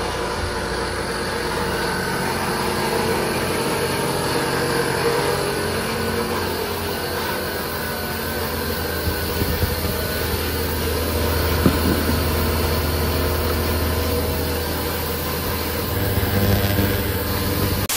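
A motor or engine running steadily, with a sharp knock about two-thirds of the way through and a slight rise in pitch and loudness near the end.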